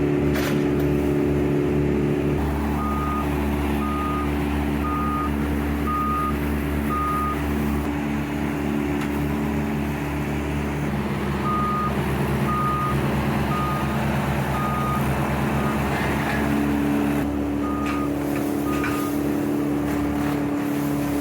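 A work vehicle's reversing alarm beeping about once a second in several separate runs as it backs up, over the steady running of a heavy engine.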